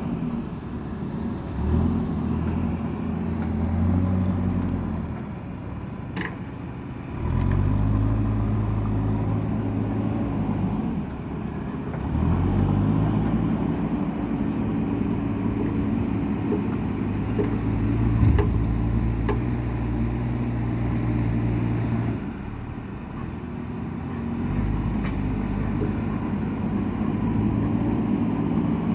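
Diesel engine of a JCB backhoe loader at work, its note stepping up and down again and again as it takes load and eases off. A few sharp knocks sound near the middle.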